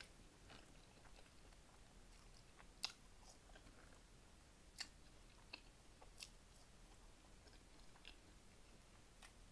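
Faint close-miked mouth sounds of a person chewing a mouthful of cheeseburger and fries, with a handful of short, sharp clicks at irregular intervals.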